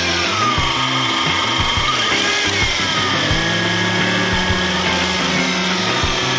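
Suzuki Jimny engine running with an abnormal grinding, rubbing noise from the engine bay, with a squeal that wavers up and down in pitch: the sign of a failing water pump pulley or belt auto-tensioner.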